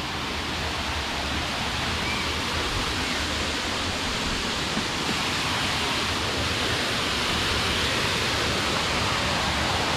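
Steady rush of a waterfall cascading over rocks, growing slightly louder as it comes closer.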